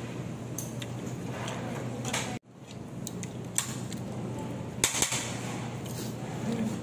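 Fast-food restaurant background noise: a steady low hum with faint voices. It cuts out briefly about two and a half seconds in, and a few light clicks and knocks follow.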